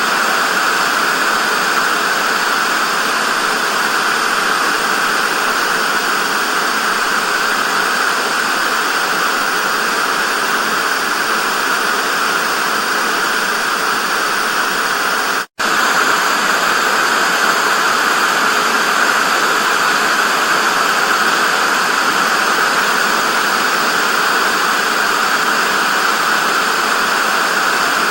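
Television static: a loud, steady hiss, strongest in the middle range with little bass. It cuts out to silence for a split second about halfway through.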